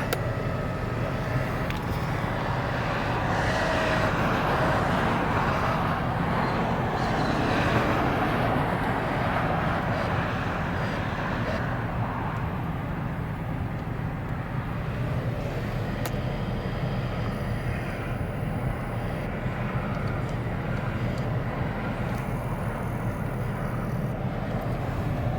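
A vehicle engine running steadily with a low hum. Over it, a rushing noise swells over the first twelve seconds or so and then fades.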